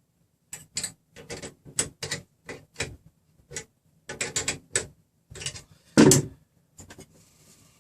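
Irregular sharp clicks and clacks of small hard parts being handled on the printer frame, with a louder knock about six seconds in. Some of the hardware has come loose during measuring and is being dealt with.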